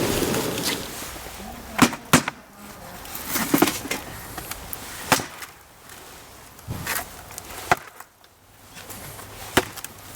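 Bamboo cracking in sharp, separate pops, about seven spread over ten seconds, over a low steady background.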